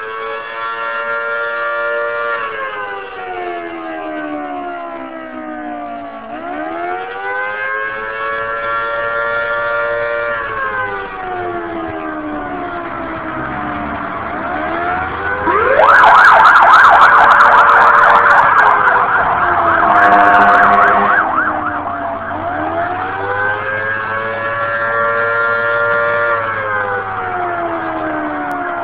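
Fire engine siren wailing, rising and falling slowly about every eight seconds. Midway a louder, faster-changing siren sound runs for about five seconds before the slow wail resumes.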